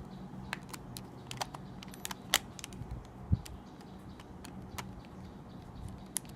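Scattered small plastic clicks and taps from handling a Nikon SB-26 speedlight flash while trying to switch it on, with a duller thump a little past the middle, over a faint steady hum.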